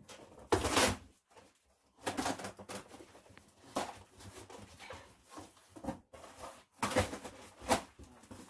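Cardboard mattress box and the plastic-wrapped rolled foam mattress inside it rustling and scraping in several short bursts as the mattress is worked loose. The loudest burst comes about a second in.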